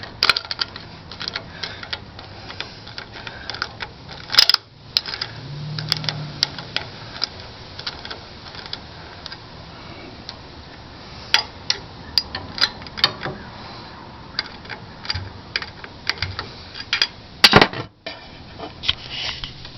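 Hand ratchet clicking and metal clinking as bolts are run through a gear puller into the engine's harmonic balancer: irregular runs of sharp clicks, with louder metal knocks about four seconds in and near the end.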